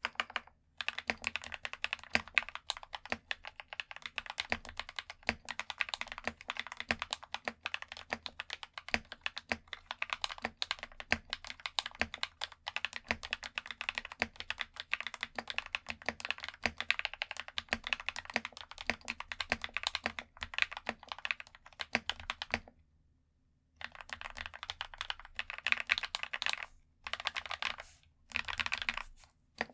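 Fast, continuous typing on an RK68 Pro mechanical keyboard with Akko CS Vintage White switches: a dense run of light key clicks. The typing drops out to near silence for about a second around three-quarters through, with a few shorter breaks near the end.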